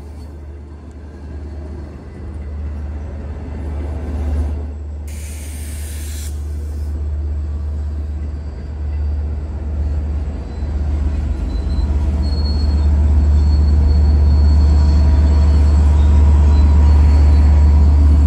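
LIRR C3 bilevel passenger coaches rolling slowly over the rails as the train brakes into the station, with a low rumble that grows louder in the second half. A short hiss about five seconds in, and a faint high wheel squeal a little past the middle.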